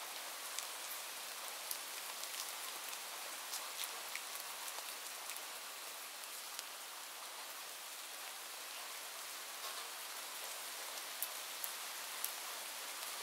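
Steady rain falling: an even hiss with scattered drops ticking now and then.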